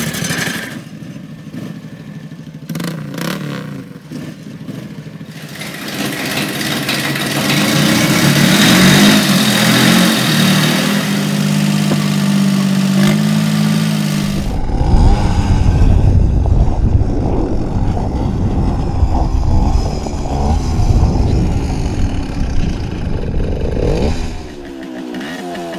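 Several different engines revving in turn, cutting abruptly from one to the next. A rising engine note in the middle gives way about halfway through to a loud, deep engine sound, and a different engine comes in near the end.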